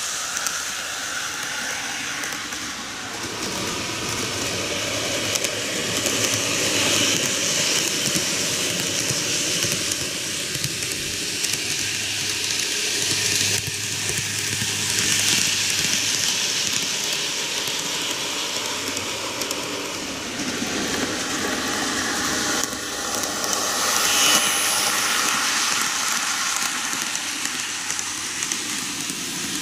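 TOMIX N-gauge model trains (Meitetsu 8800 Panorama DX and KiHa 8200) running on plastic track around a banked curve: the steady rushing, crackly rolling noise of wheels and motors, rising and falling in level as the trains come near and draw away.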